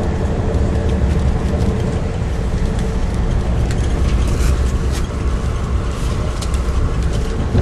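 Steady rumble of a moving passenger train heard from inside its cab car, the wheels running on the rails, with a few light clicks around the middle.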